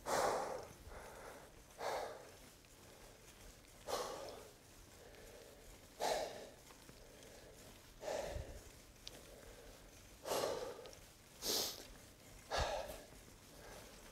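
A cyclist's heavy breathing close to the microphone: hard exhales about every two seconds, coming quicker near the end, the sound of exertion while pedalling.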